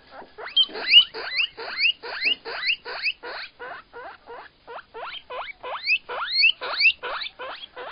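Guinea pig wheeking: a long unbroken run of short, rising squeaks, about three a second.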